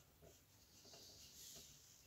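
Near silence, with faint scratching and small ticks of a screwdriver turning a small screw into the scale's dial face.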